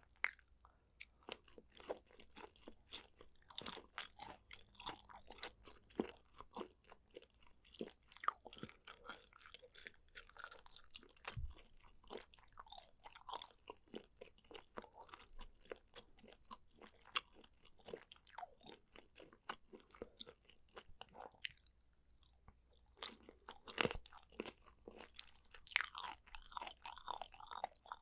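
Close-miked eating: steady chewing with crisp crunches and wet mouth clicks, broken by a short quiet stretch before a loud bite about three-quarters of the way in.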